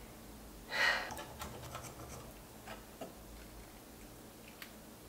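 A pizza cutter wheel scraping through a crisp sweet potato flatbread crust: one short, loud crunchy scrape about a second in, followed by scattered light clicks and taps.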